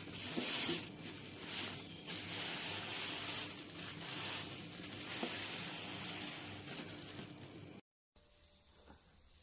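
Khind EK501 stainless steel electric kettle heating water, a fluctuating hiss and sizzle from the water on the heating element. It cuts off abruptly near the end, leaving faint room tone.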